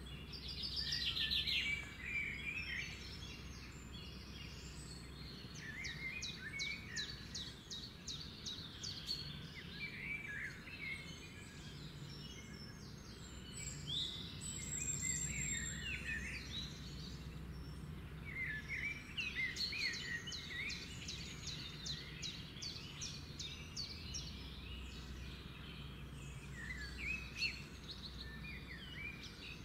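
Several birds chirping and singing, with bursts of quick, rapidly repeated trill notes, over a steady low background hum.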